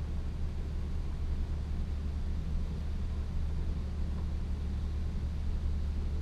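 Automatic car wash heard from inside the car: a steady, muffled low rumble of the wash machinery and water on the body, as the rotating top brush sweeps over the glass roof.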